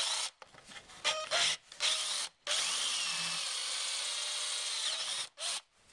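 Cordless drill running in a few short bursts, then one steady run of about two and a half seconds, drilling a hole through a plastic sill cover into a piece of wood beneath.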